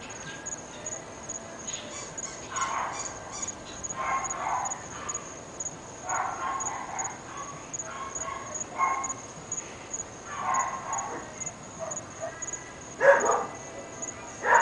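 Dogs barking in short bouts every couple of seconds, the loudest near the end, over a steady high-pitched tone.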